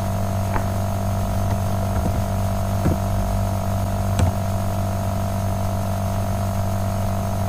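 Steady electrical mains hum, with a few faint clicks of computer keys being typed, spaced a second or so apart.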